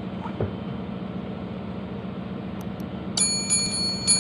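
Steady low hum and hiss in the background; about three seconds in, a subscribe-button sound effect starts: a few quick mouse clicks and a bright ringing bell chime.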